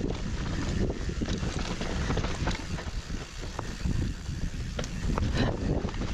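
Mountain bike descending a dirt downhill trail: wind buffeting the microphone over tyre and trail rumble, with scattered sharp clicks and knocks from the bike.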